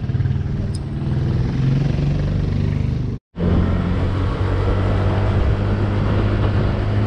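A small motorcycle engine running. After a cut about three seconds in, a Honda scooter's engine runs steadily as it is ridden along.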